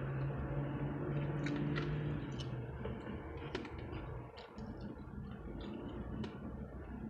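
Close-up chewing and wet mouth sounds with scattered small clicks, over a steady low hum that fades out about three seconds in.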